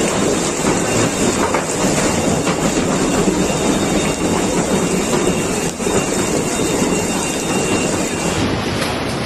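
Heavy hail and rain drumming on a supermarket roof, heard from inside the store through a ceiling with its panels knocked out: a loud, continuous din of many small impacts.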